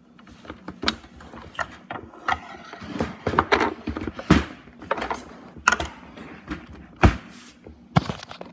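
Handling noise: an irregular run of plastic clicks, knocks and rustles as things are moved and set in place, with sharper knocks about four seconds in, about seven seconds in and near the end.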